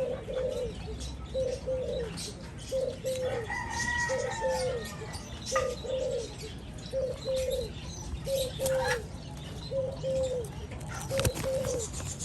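Doves cooing in short, low double notes repeated about once a second, with rustling and wing-fluttering from the feeding birds. A longer, higher, arching call comes in about four seconds in.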